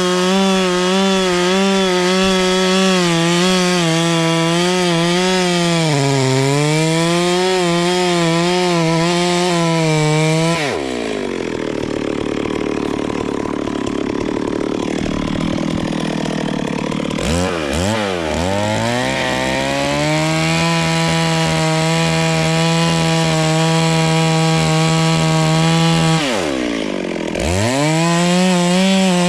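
Two-stroke chainsaw running at high revs while cutting into a large tree, its pitch sagging briefly under load about six seconds in. It drops back toward idle about eleven seconds in, revs up again around eighteen to twenty seconds, and dips once more briefly near the end before returning to full throttle.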